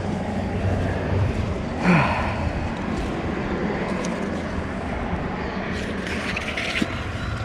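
A steady low engine hum, like a vehicle running, with a short louder sound about two seconds in and some scratchy noise near the end.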